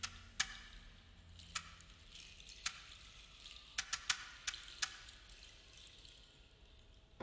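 Quiet, sparse percussion: about eight light, irregularly spaced taps, each with a brief metallic ring, three of them in quick succession about four seconds in.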